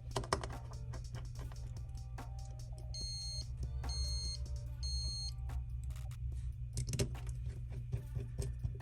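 Background music under small sharp clicks and taps of handling phone parts. Three short high electronic beeps sound about a second apart in the middle.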